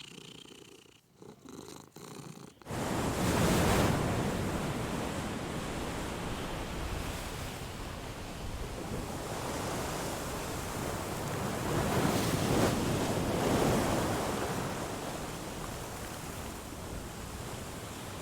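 Domestic cat purring close to the microphone, a steady rumbling noise that comes in about two and a half seconds in and then swells and eases slowly.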